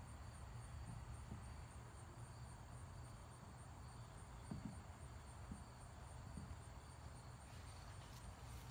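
Faint, steady, high-pitched trilling of insects, over a low background hum.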